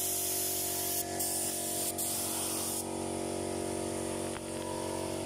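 Compressed-air paint spray gun hissing in short bursts, broken by brief trigger releases about one and two seconds in, then stopping about three seconds in. A steady machine hum runs underneath.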